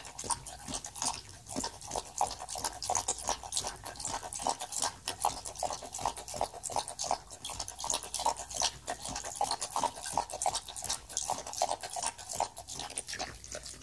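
Lop-eared rabbit lapping water from a pet drinking fountain: a rapid run of small wet licking clicks.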